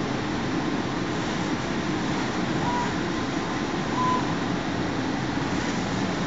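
Two-head laser cutting machine running while it cuts, a steady mechanical noise with two brief faint tones about three and four seconds in.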